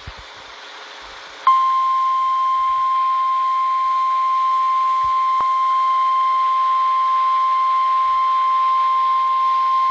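NOAA Weather Radio 1050 Hz warning alarm tone: a single steady, loud electronic tone that starts abruptly about a second and a half in, after a short stretch of faint radio hiss, and holds unchanged. It is the attention signal that precedes a broadcast warning, here a severe thunderstorm warning.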